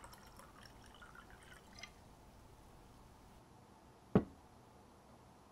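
Quiet room tone with a few faint clicks in the first two seconds, then one sharp thump about four seconds in that dies away quickly.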